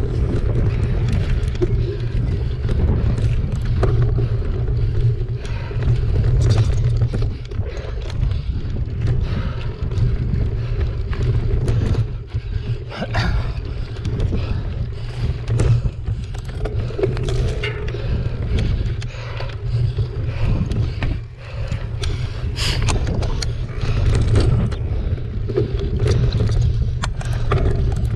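A mountain bike ridden hard over a dry, rough dirt trail: steady rumble of tyres and wind on the handlebar-mounted microphone, with frequent sharp clicks, rattles and knocks as the bike takes the bumps.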